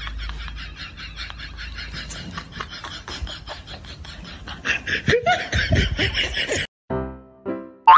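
Rapid, repeated bursts of laughter, louder and more strained a little past the middle. It cuts off abruptly, and music with a steady beat begins near the end.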